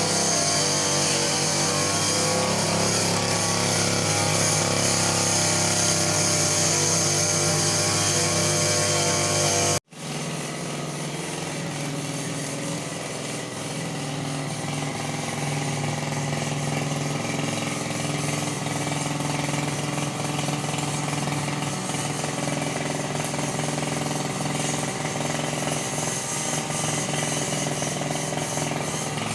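Grass-cutting brush cutter's small engine running steadily at high speed. It cuts off for an instant about ten seconds in, then carries on slightly quieter.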